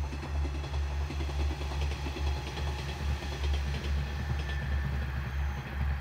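Low, pulsing engine rumble of a vehicle, steady in level throughout.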